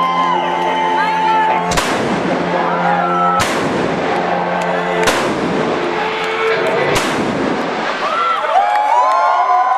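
Stage pyrotechnic blasts going off four times, about every one and a half to two seconds, each with a ringing tail, while a held band chord dies away. An arena crowd cheers and whoops through it.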